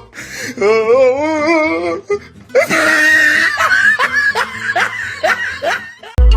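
Hearty human laughter, first a wavering drawn-out laugh and then a run of rapid repeated laughs, with music underneath.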